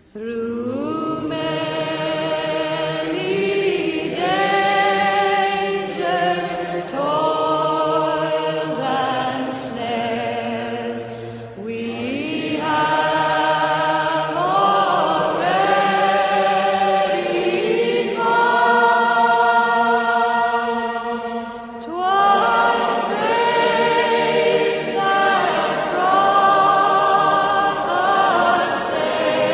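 Choral background music: a group of voices singing long, held notes that slide from one pitch to the next, with no words picked out.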